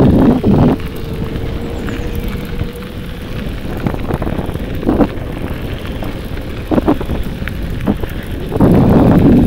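Wind buffeting the microphone, loud for the first half-second and again near the end, with a quieter steady rumble and a few short knocks in between.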